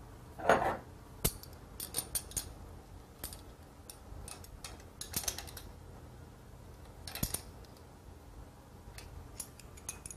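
Hand tools tightening the mounting bolts of an air-conditioning compressor on a metal accessory plate: irregular metallic clicks and a few short runs of rapid clicking.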